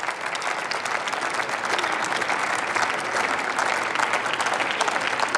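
Members of parliament applauding: a steady round of many hands clapping.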